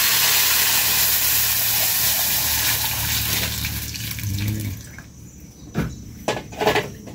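Water running in a steady rush that tapers off about four seconds in, followed by a few light knocks.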